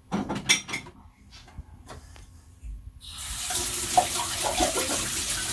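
A water tap turned on about three seconds in, running steadily into a sink.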